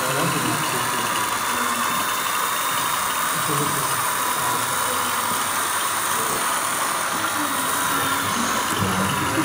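Hall hubbub: background chatter of many voices over a steady hiss.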